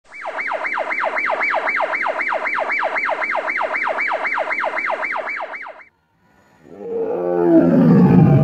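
A siren-like electronic wail, sweeping up and down about four times a second, cuts off abruptly about six seconds in. After a brief gap a tiger roars, building to a loud roar that falls in pitch near the end.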